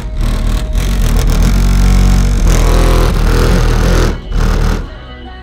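Music played loud through a car audio system, dominated by deep bass from a 15-inch Ground Zero GZNW 15 subwoofer driven by a Rockford Fosgate T2000.1bd amplifier. The level dips briefly about four seconds in and drops again near the end.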